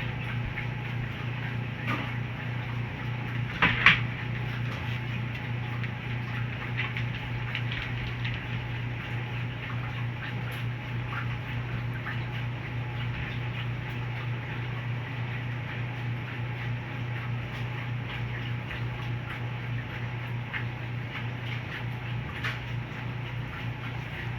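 1979 GE Hotpoint washing machine running with a steady low hum and faint scattered ticks, with one sharp knock about four seconds in.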